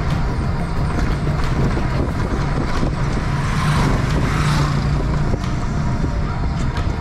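Road and wind noise from riding an open electric trike along a town street. A motorcycle tricycle's engine passes close, swelling to its loudest about four seconds in and fading soon after five.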